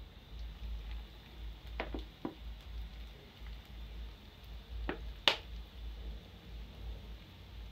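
Churro dough frying in hot oil in a pan with a soft steady sizzle. A few short clicks break in, the sharpest about five seconds in.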